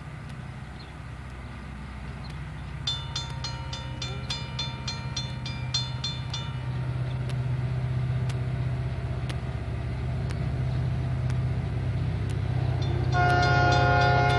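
Norfolk Southern diesel freight locomotive approaching, its low engine rumble growing steadily louder. Its air horn sounds one blast of about four seconds a few seconds in, and a second, louder blast starts near the end.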